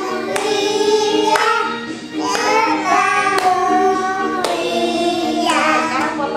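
Children and a woman singing a birthday song together, with hand clapping.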